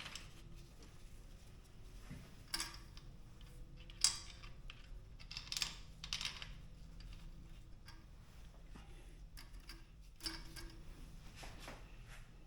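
Quiet, scattered metal clicks and clinks from bolts and a hand tool, several a second or more apart, some ringing briefly: the fuel rail being bolted down onto the engine.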